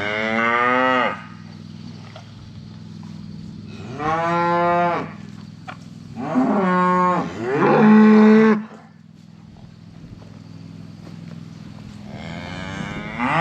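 Cattle mooing: about five long calls, a couple of them back to back near the middle, over a steady low hum.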